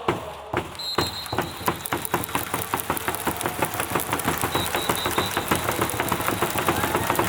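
Stadium crowd of baseball fans clapping in a fast, even rhythm, about five claps a second.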